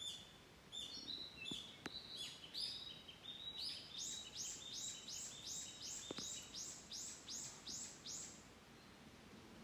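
Songbird singing: repeated short, high chirping notes that quicken into a steady run of about a dozen notes, roughly three a second, stopping near the end.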